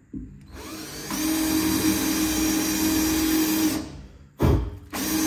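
Cordless drill running into the metal top of a fuel tank: a steady motor whine for about three and a half seconds, then a brief second burst near the end.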